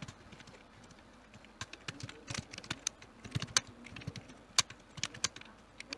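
Keyboard typing: irregular keystroke clicks at a steady working pace, sparse for about the first second, with a few louder key hits in the middle.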